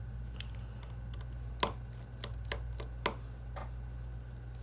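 Small sharp clicks and taps, about eight at irregular intervals, from a screwdriver and tiny screws as the tri-wing screws come out of a plate inside an iPhone 7 Plus. A steady low hum lies underneath.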